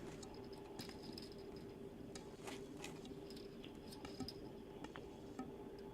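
A few faint, irregular clicks and taps, typewriter keys struck slowly and hesitantly, over a low steady hum.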